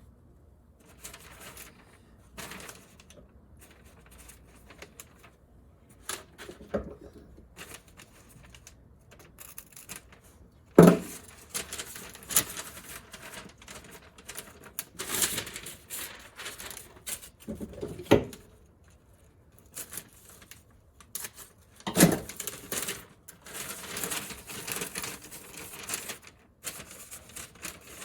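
A paper template sheet being handled, crinkled, torn and cut: rustling and scattered clicks, with three sharp knocks about eleven, eighteen and twenty-two seconds in.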